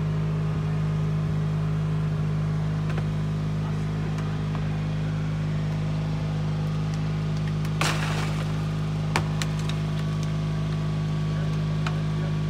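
Steady engine drone of the power unit driving the hydraulic rescue tool. Brief scraping burst about eight seconds in, then a sharp click about a second later, as the tool works on the car body.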